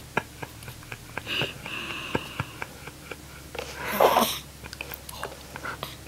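Eight-day-old newborn baby hiccuping, the loudest hiccup a short noisy burst about four seconds in. Earlier there is a brief high squeak, and faint clicks of small mouth sounds run through.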